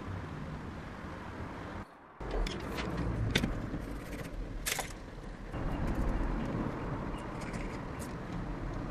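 Steady low rumble with a few sharp clicks and taps from a tape measure being handled against a wall. The sound drops out briefly about two seconds in.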